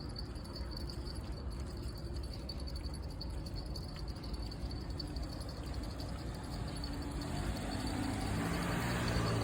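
Outdoor ambience: a steady high-pitched insect trill runs throughout over a low rumble. A vehicle grows louder over the last couple of seconds.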